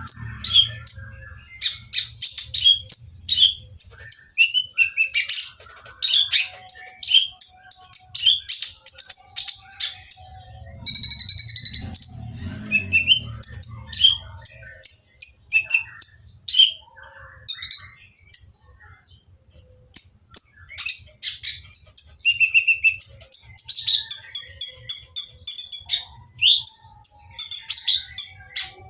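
Kolibri ninja sunbird singing a noisy, rough, fast run of high chirps and twitters, almost without a break. There is a short pause about two-thirds of the way through. This is the harsh song that bird keepers play to prompt other konin to answer.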